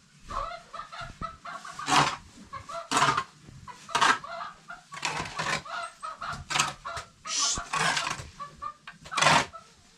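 Chickens clucking, a busy run of short calls with several louder, sharper ones standing out.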